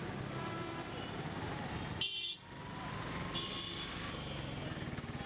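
Busy street traffic noise with short horn toots, one about two seconds in and another around three and a half seconds in.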